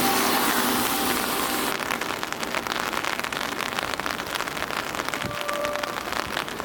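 A steady, dense crackle like rain pattering, its hiss thinning a little about two seconds in, with a few faint held music notes.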